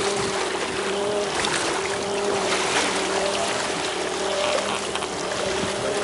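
Boat engine running steadily under a hiss of wind and sea water, with a steady drone and a slightly wavering higher hum.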